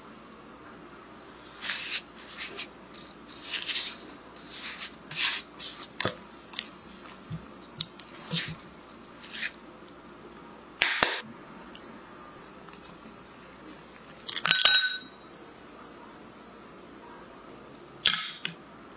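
A spatula mashing and scraping cream cheese and sugar in a glass bowl: a string of short soft scrapes and squishes. Later come a sharp tap and a brief ringing clink of utensil or jar against glass.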